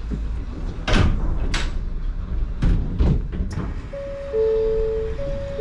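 Suspended monorail car standing at a station: several short, sharp hissing thumps, then from about four seconds in a steady two-note electronic door chime.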